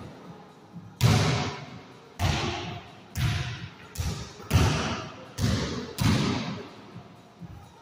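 Basketball bouncing seven times, sharp thuds at an uneven pace, each one echoing in a small hard-walled room.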